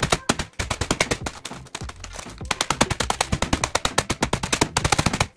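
Rubber mallet pounding a package of mint Oreos on a stone countertop, crushing the cookies inside, in rapid blows several a second. There are short pauses about half a second and two seconds in.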